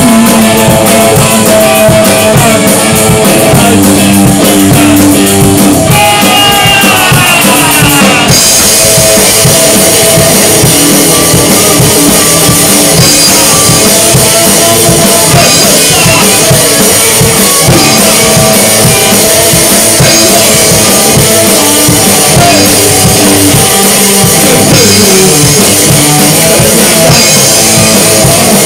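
Rock band playing with guitar and drum kit, steady and loud. About six seconds in, a falling glide in pitch leads into a fuller section with cymbals from about eight seconds.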